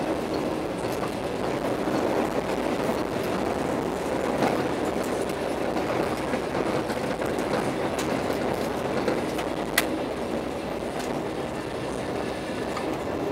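Steady running noise of the Argo Parahyangan passenger train, heard from inside a carriage: wheels rolling on the rails at speed. A few sharp clicks stand out, the loudest nearly ten seconds in.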